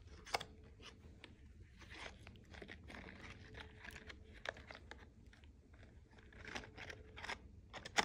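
A toddler handling a cardboard Chick-fil-A nugget box and picking food from it: faint, scattered crinkles and small taps, with one sharper tick about a third of a second in.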